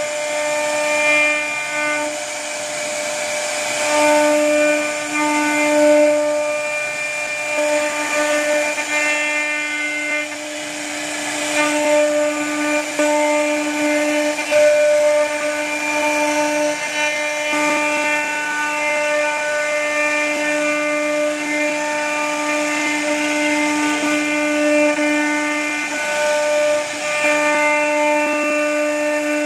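CNC router spindle whining steadily as its bit carves grooves into a wooden door panel, with a hiss of cutting over the tone. The whine dips briefly now and then as the load changes.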